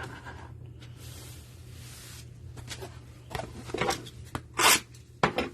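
Trading cards and their cardboard packaging being handled: a soft sliding rub about a second in, then a few short rustles and taps. A steady low hum sits underneath.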